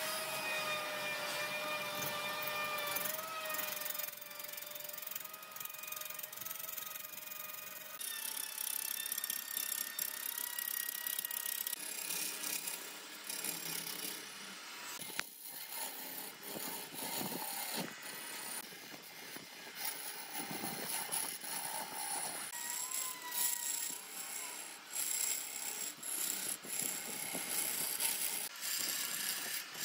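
Wood lathe running while a tool cuts and scrapes the spinning workpiece, with a steady whine from the machine. The sound shifts abruptly every few seconds.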